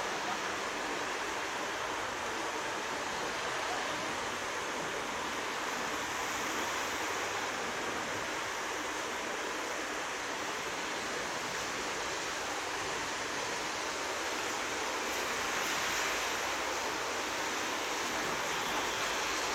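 EN57AKŚ electric multiple unit approaching on snowy track: a steady rushing noise of the train in motion, growing a little louder near the end.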